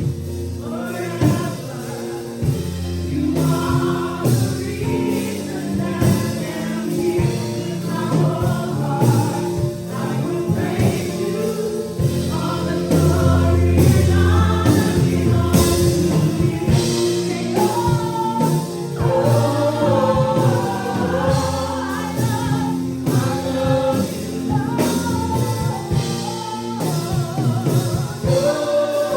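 Gospel choir singing with band accompaniment, with percussive strokes throughout.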